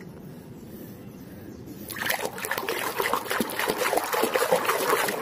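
A hand swishing and scrubbing a small plastic toy animal in a basin of soapy water: irregular splashing and sloshing that starts suddenly about two seconds in and keeps going.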